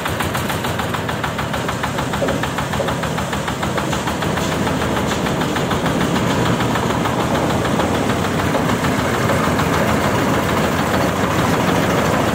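Single-cylinder diesel engine of a self-propelled paddy thresher running steadily with a rapid knocking beat, growing slightly louder over the stretch.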